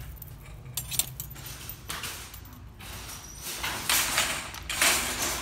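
A plastic shopping basket being picked up, its wire handles clinking and rattling, followed by two louder rustling swells of handling noise in the second half.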